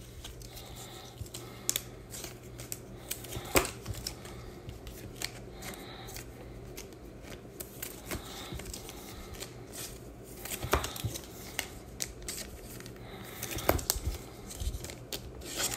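Trading cards being handled at a table: soft sliding and shuffling with a few sharp taps as cards are set down.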